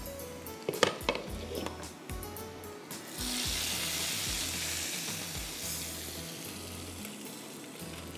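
A few sharp clinks of a utensil on cookware, then about three seconds in a sudden loud sizzle that dies down slowly. The sizzle is a tarka of hot olive oil with fried garlic and cumin meeting the food.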